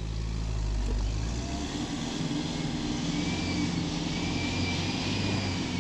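Pickup truck engine running as the truck drives and turns; the engine note shifts upward about a second and a half in.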